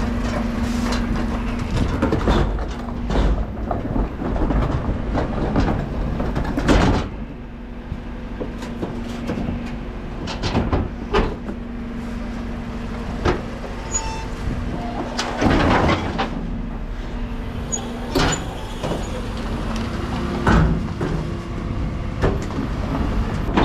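Dennis Eagle Elite refuse truck's engine running with a steady hum while a large four-wheeled plastic communal bin is wheeled up and knocked against the truck's rear bin lift, with rattling and several sharp clunks.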